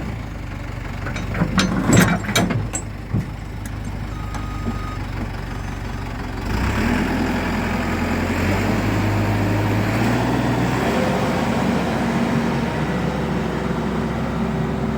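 Case 480 backhoe engine running with a few sharp metal clanks in the first three seconds. About six and a half seconds in it revs up and runs steadily at the higher speed, as the machine climbs onto a trailer.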